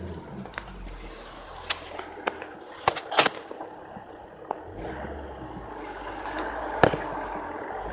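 Volvo D5 diesel car with a low engine rumble that fades for a couple of seconds and then returns, and a handful of sharp clicks or knocks at irregular moments, the strongest near the end.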